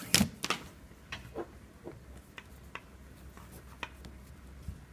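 Nylon paracord rustling and rubbing as strands are pulled through loops by hand, with a cluster of louder handling noises in the first half second and then scattered soft clicks and taps.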